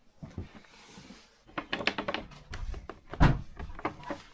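A quick run of clattering wooden knocks, then one heavy thump about three seconds in and a few lighter knocks after it, with the boxy ring of a small room.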